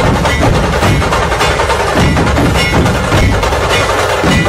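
Loud music with heavy percussion.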